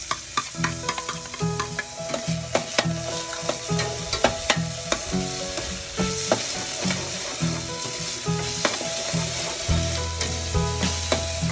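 Chopped garlic and white onion sizzling in olive oil in a pan. A utensil stirring them gives many short clicks and scrapes against the pan.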